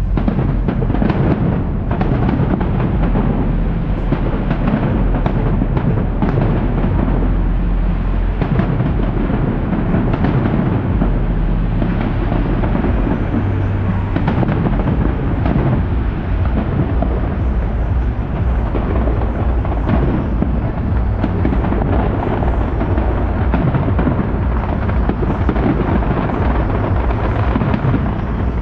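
Large fireworks display: a dense, unbroken run of bangs and crackles, loud throughout.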